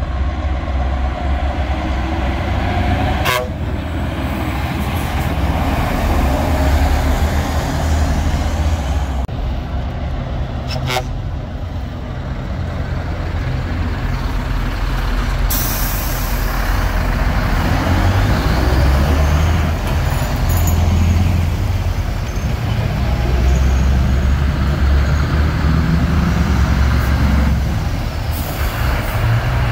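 Heavy Scania trucks hauling semi-trailers pull out and drive past at low speed, their diesel engines giving a steady deep rumble that swells as each one passes. A short hiss comes about halfway through.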